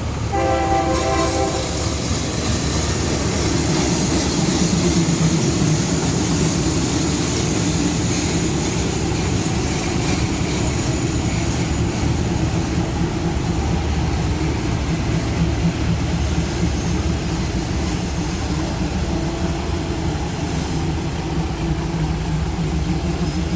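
A diesel-hauled passenger train at a station: a chord-like horn blast of about a second near the start, then the locomotive and carriages running steadily and loudly.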